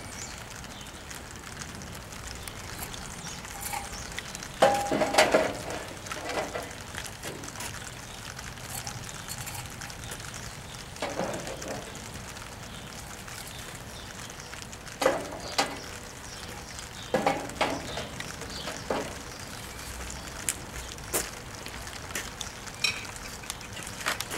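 Metal grill bars clanking and rattling as they are set one by one into the cookbox of a Weber Spirit E-210 gas grill: irregular sharp clatters, loudest about five seconds in and again in a run of knocks midway through.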